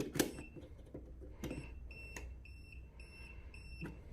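Voltage tester beeping in short, uneven high-pitched beeps, signalling live voltage at a GFCI outlet, with a few sharp handling clicks.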